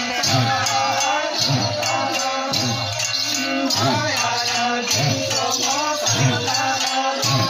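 Santali Dasai dance music: a wavering melody over a low drum stroke about once a second, with a steady rattling, shaker-like percussion.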